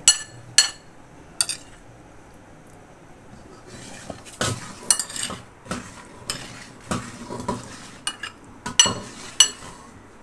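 Metal spoon clinking and scraping against a ceramic plate as it pushes cubes of jelly around: a few sharp taps at first, a quiet stretch from about two to four seconds in, then a run of clinks and scrapes.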